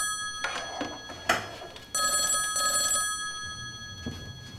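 Desk telephone ringing: one ring ends just after the start and another comes about two seconds in, lasting about a second and a half. A sharp knock sounds about a second in.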